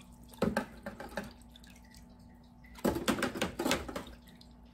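Metal wire whisk being swished and scrubbed by hand in a plastic tub of blue Steramine sanitizer solution: two short bursts of water splashing with light clicking of the wires, the second about three seconds in. A faint steady hum runs underneath.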